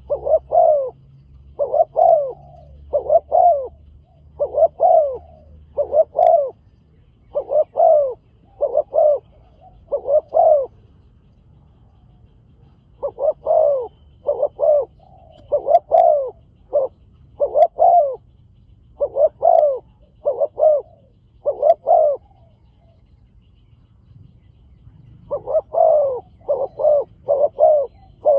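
Spotted dove cooing: runs of short, evenly spaced coos, each arching in pitch, broken by pauses of two to three seconds between runs.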